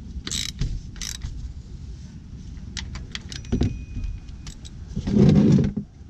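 Ratchet driving a cap-type oil filter wrench, clicking in short bursts as a new oil filter is tightened. Scattered light metal clinks follow as the tool comes off, and a louder muffled rustle lasts about a second near the end.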